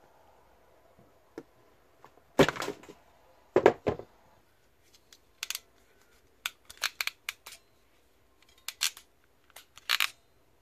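A ratchet crimping tool and wire cutters working electrical cable while insulated crimp terminals are fitted: a string of sharp, irregularly spaced clicks and short snips, some in quick clusters.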